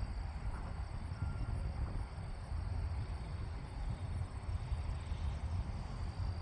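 Wind buffeting the microphone in an uneven low rumble, with a steady high-pitched insect trill underneath.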